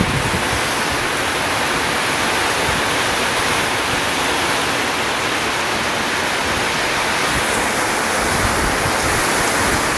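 Heavy typhoon rain pouring down in a steady, unbroken rush, with wind.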